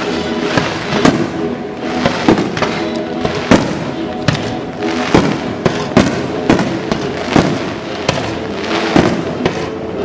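Aerial fireworks going off in quick succession, sharp bangs more than once a second, each with a short crackling tail. Music with steady held tones plays underneath.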